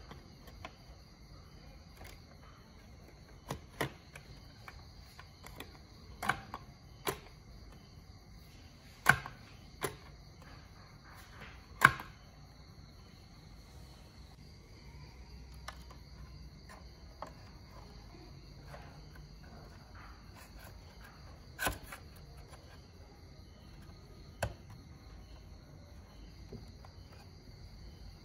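Scattered sharp plastic clicks and knocks from an Aiwa CD boombox being handled, its CD lid and push buttons worked, the loudest two about nine and twelve seconds in. Under them runs a steady high chirring of crickets.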